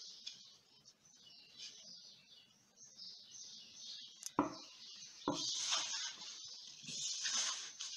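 Hands kneading crumbly pie dough of flour, shortening and water in a bowl: soft rustling and squishing that comes and goes with the hand strokes, with two short knocks against the bowl about halfway through.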